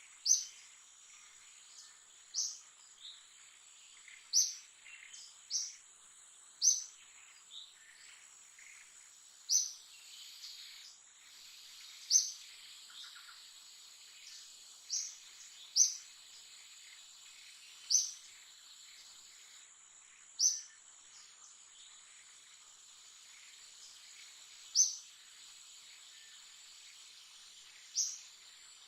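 Outdoor forest ambience: a steady, high-pitched insect drone under a bird giving short, sharp chirps, one every one to three seconds at uneven spacing.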